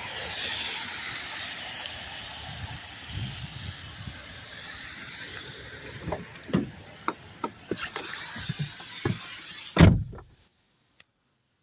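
Steady hiss of rain with a few scattered knocks. Near the end comes one heavy thump, after which the rain sound is cut off almost to silence.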